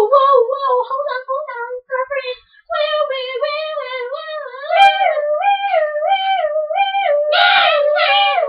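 A high-pitched voice singing a wavering tune. From about three seconds in, the pitch swings up and down about twice a second.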